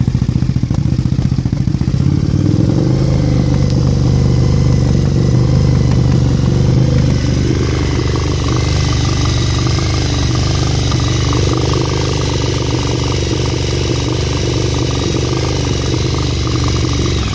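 Fuel-injected motorcycle engine running rough and unsteady, its speed wandering rather than holding a steady idle, with the evaporative canister and vacuum lines connected to the throttle body. It sounds horrible: a fault in the vacuum or EVAP hookup upsets the idle.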